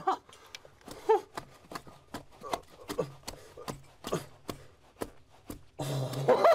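Short-handled hand pick tapping and scraping at soft opal-bearing rock, a string of sharp, irregular taps with small stones falling. The miner is picking out a seam of crystal opal by hand.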